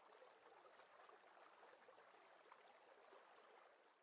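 Very faint fizzing, crackling water noise, like rising bubbles.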